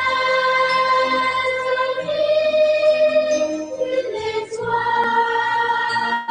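Children singing a Christmas song as a group, in long held notes.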